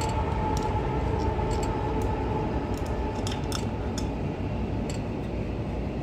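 Scattered light clicks and taps of a cover being fitted back onto a small motorized-bike engine by hand, over a steady background hum.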